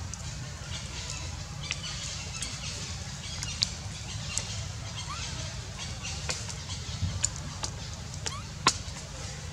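Dry leaf litter crackling in scattered sharp clicks and ticks as macaques shift about on it, with the loudest click near the end, over a steady low rumble. A faint short rising chirp comes about five seconds in.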